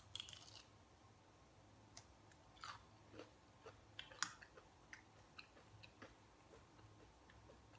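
Faint close-up chewing of a fried, cheese-filled Doritos Loaded jalapeño-and-cheese bite: soft crunches and mouth clicks scattered through, the sharpest about four seconds in.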